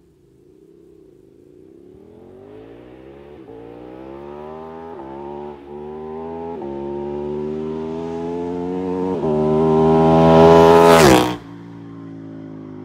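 KTM 1290 Super Duke R's V-twin engine, fitted with an Austin Racing slip-on exhaust, accelerating hard toward and past the listener. Its pitch climbs through several quick upshifts and it is loudest just before it passes, about 11 seconds in. Then it drops sharply in level and pitch as it pulls away.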